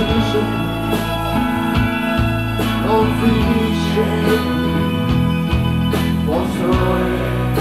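Live rock band playing amplified music on electric guitars, electric bass and drums.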